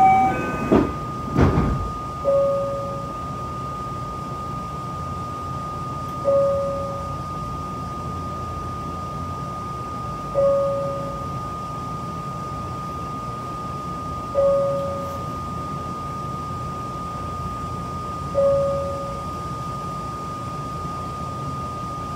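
Standing electric train with a steady high electrical tone and an electronic chime sounding one note about every four seconds. At the very start a short run of chime notes is followed by two heavy thumps.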